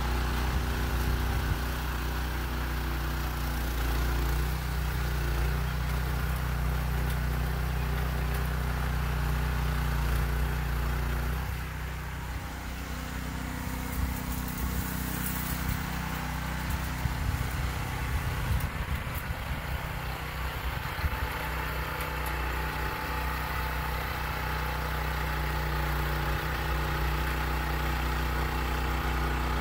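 Rear-tine rototiller's small gasoline engine running steadily under load as its tines churn sand into clay soil, a little quieter for a few seconds about twelve seconds in.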